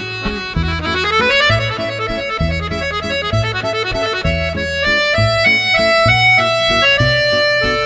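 Background music: a melodic instrumental tune with a rising run of notes about a second in, over a steady pulsing bass beat.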